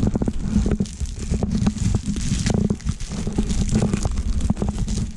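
Plastic packaging and a padded bubble mailer being handled and crinkled close to the microphone, with many small crackles over a heavy, low rubbing noise from the camera being moved.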